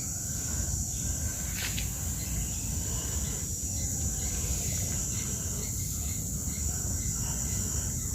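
Steady high-pitched hiss over a low background rumble, with no distinct sound standing out.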